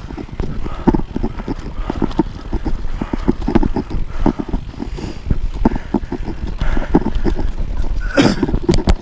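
Mountain bike rolling fast down a bumpy dirt trail: a steady rumble of the tyres with an irregular run of rattles and knocks from the bike over the bumps, and a louder clatter near the end.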